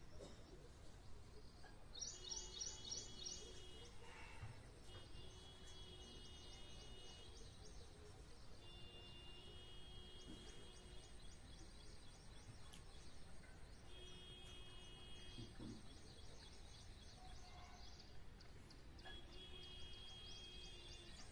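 Faint outdoor background, nearly silent, with birds chirping and trilling on and off.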